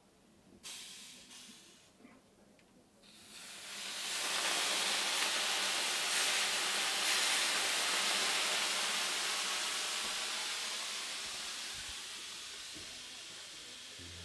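Water ladled onto the hot stones of a wood-fired sauna stove, hissing into steam (löyly). A short burst of noise about a second in, then from about three seconds a loud hiss that swells and slowly dies away.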